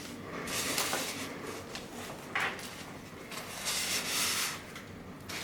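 Handling noise as the head unit and its cables are moved and rubbed, in several rustling, scraping bursts with a short sharp scrape about two and a half seconds in.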